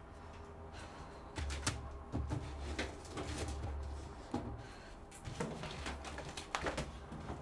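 Irregular knocks and clatters of things being handled and moved around a storage bench, as in hurried rummaging, over a low droning music bed that swells in and out.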